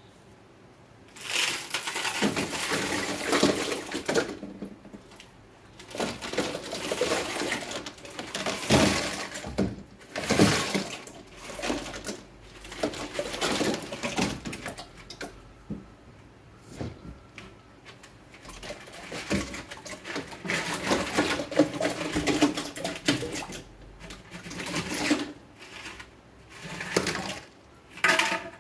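Aquarium stones being poured and spread by hand in a container of shallow water: stones clattering together and water splashing, in repeated bursts a second or two long with short pauses between.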